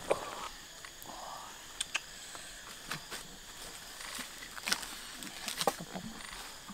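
Mussel shells clinking against each other and the wok as a ladle stirs them, with a wood fire crackling. Scattered sharp clicks and knocks, the loudest about five to six seconds in.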